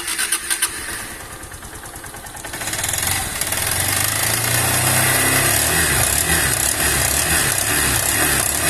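Honda CG Titan 160 motorcycle's single-cylinder four-stroke engine started up and running, brought up to a faster steady speed about three seconds in. The engine is making an abnormal internal noise.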